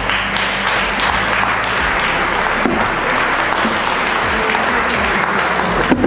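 Audience applauding, with soundtrack music faintly underneath.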